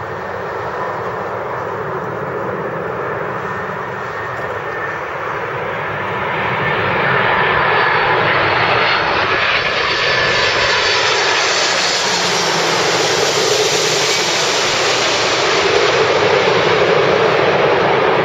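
McDonnell Douglas MD-11's three jet engines at approach power as the airliner flies low overhead on final approach: a steady jet rumble with a faint whine, swelling about six seconds in and staying loud as it passes and draws away.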